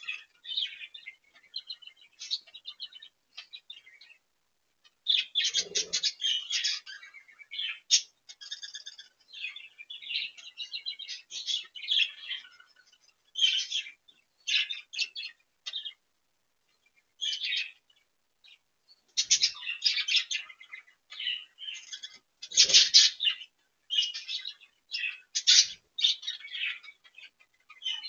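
Budgerigars chattering and chirping in quick, high bursts with short pauses between them. Two brief low thumps sound under the chatter, about six seconds in and again about two-thirds of the way through.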